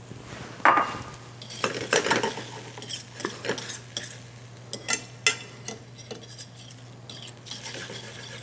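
A metal fork scraping and clicking irregularly against a de Buyer carbon steel pan as beaten eggs are stirred, over a light sizzle of the eggs cooking in butter.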